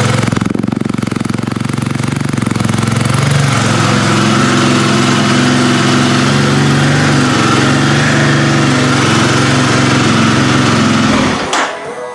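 Kawasaki KLX300R's single-cylinder four-stroke engine running steadily through its stock muffler, pretty loud in the hallway. It cuts off about half a second before the end.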